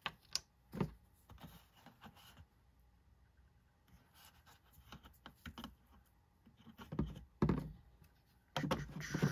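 Light clicks and taps of a bottle of alcohol and a cleaning patch being handled to wet the patch, with a couple of louder knocks near the end.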